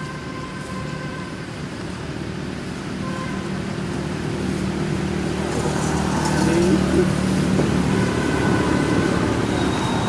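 A motor vehicle's engine running nearby, a low rumble that grows louder over the first six seconds or so and then holds.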